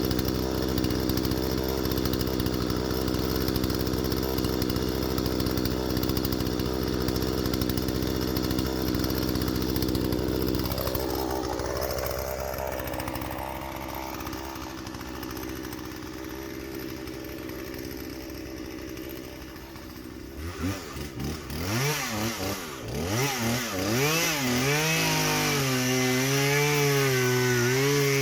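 Husqvarna 120 Mark II two-stroke chainsaw running at a steady speed, its pitch dipping briefly and recovering about a third of the way in. After a quieter stretch it is revved up and down in a series of rising and falling swells, then held at high revs with a wavering pitch near the end.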